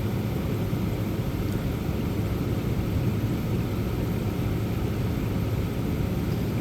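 1985 White Westinghouse 5900 BTU window air conditioner running under load, with its original rotary compressor giving a steady hum under the fan's air noise.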